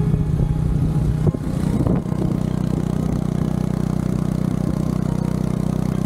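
A vehicle engine running steadily, its note shifting about two seconds in.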